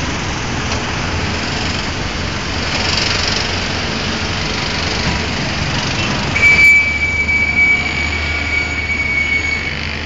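Steady loud rushing noise, with a single high, steady squeal that starts about six and a half seconds in and lasts about three seconds.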